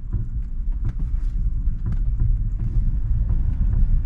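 Car engine and road noise heard from inside the cabin as the car drives along: a steady low rumble with faint scattered clicks.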